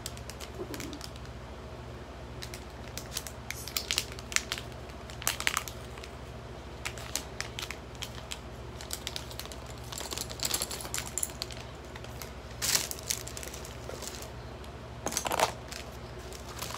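Makeup items and containers being handled and set down: scattered clicks, taps and rattles, with louder clatters about four, ten and fifteen seconds in. A steady low hum runs underneath.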